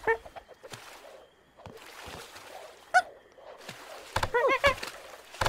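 Cartoon monkey characters' wordless vocal sounds: a short call at the start, a brief high yelp about three seconds in, and a quick run of laugh-like calls near the end, with a few sharp clicks between.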